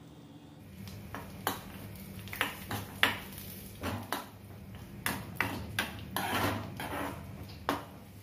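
A spoon scraping and clinking against a small kadai in irregular strokes, starting about a second in, as cashews, raisins and melon seeds are stirred while they fry in ghee.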